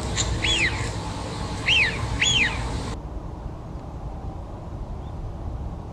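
Male Eurasian wigeon giving its whistled call three times in the first three seconds, each note sliding up and then down in pitch, the last two close together, over a steady low background rumble.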